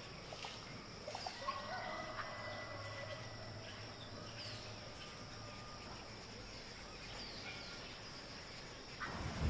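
Faint forest ambience of insects and occasional short, falling bird chirps over a low steady hum. A louder low rumble comes in near the end.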